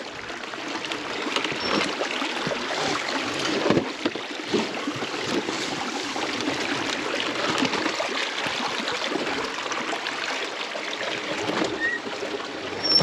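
Shallow rocky creek water rushing and splashing around an electric dirt bike as it is ridden slowly through the stream, with a few knocks, the loudest about four seconds in.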